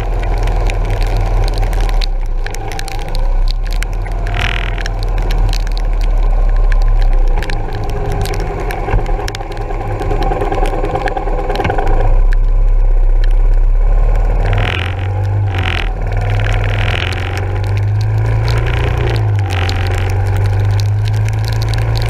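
Onboard sound of a Yamaha SR400's air-cooled single-cylinder four-stroke engine while riding, its engine speed rising and falling with the throttle, over steady hiss of wind and rain with tyres on a soaked road.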